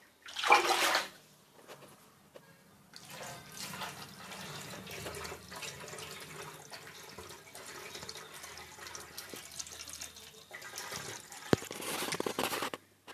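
Mini steam engine hissing and spluttering, with steam and water sputtering out in a steady crackly hiss. There is a loud burst about half a second in and a louder stretch near the end.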